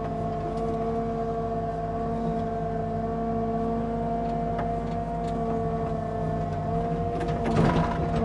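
Engine of a digging machine running steadily at working speed, with an even mechanical drone. A short, louder rough noise comes near the end.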